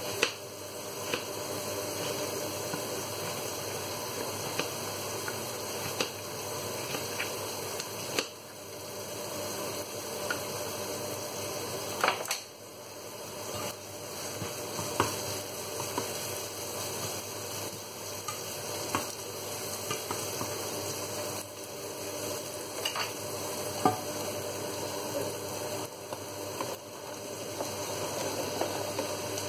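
Diced onions sizzling steadily in a nonstick frying pan. Scattered sharp knocks and scrapes come from a knife on a plastic chopping board and a spatula stirring in the pan.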